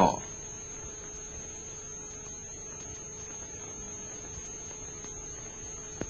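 Steady hum and hiss of an old film soundtrack, with two constant tones, one low and one high, and nothing else happening.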